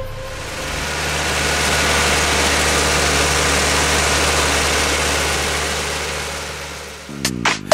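Ursus C-360 tractor's diesel engine running steadily while pulling a loaded manure spreader, growing louder for the first couple of seconds and then slowly fading. Music starts near the end.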